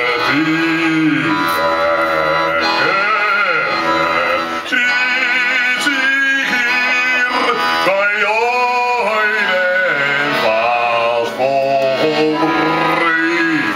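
Operatic bel canto singing: a sustained solo voice with strong vibrato, swelling and holding long notes over backing music.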